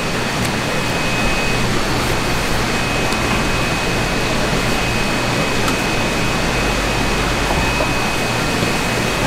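Steady machine noise with a thin, high, unchanging whine. A few faint taps of a knife on a wooden cutting board sound over it as fish fillets are sliced.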